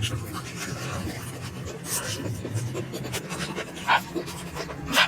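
Mouth sounds of someone eating momos: wet chewing and smacking, with a few louder mouth noises about four and five seconds in.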